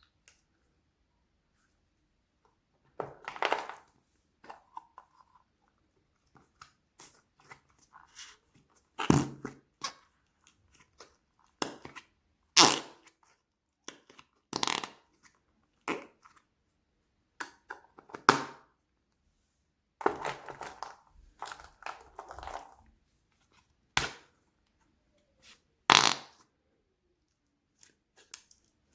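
Slime squished in a toy slime toilet, making a long run of short, wet, fart-like squelches, some about a second long, with pauses between them.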